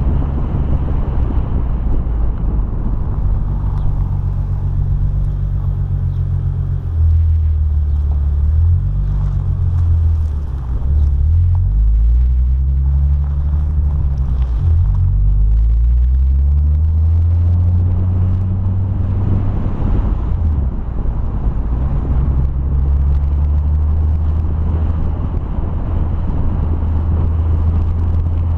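Nissan 350Z's 3.5-litre V6 running as the car drives on, with tyre and wind noise. The engine note holds steady at first, then rises and falls several times through the middle as the car speeds up and eases off, before settling again.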